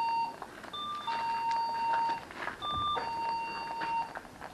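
Motion-sensor alarm chiming a two-note ding-dong, a short higher note then a longer lower one, repeating about every two seconds as movement in front of it keeps triggering it.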